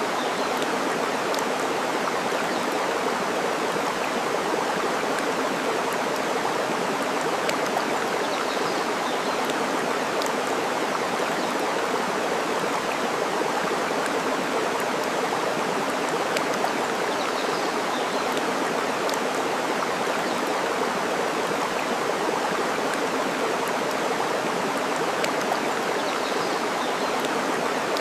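Steady rush of running water, with a few faint crackles from a wood fire scattered through it.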